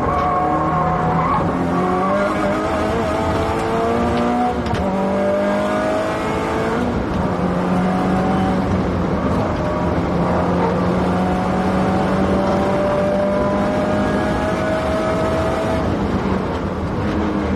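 Subaru Impreza WRX STI's turbocharged flat-four engine pulling hard at full throttle. Its pitch climbs in each gear and drops at upshifts about four and a half, six and a half and sixteen seconds in, with a long steady climb in one gear between the last two.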